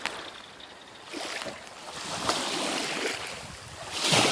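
Water and wind noise around a canoe landing, with small knocks and splashes, swelling into a loud rush of noise near the end.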